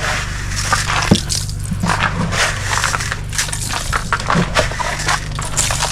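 Rock salt being thrown and crunching on an icy walkway, a stream of short irregular gritty crackles. Under it, a small garden tractor engine idles with a steady low hum.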